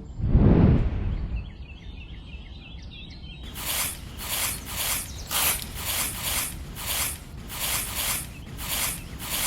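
A brief low thump, then faint chirps, then a steady run of rhythmic hissing, scraping strokes, about one and a half a second.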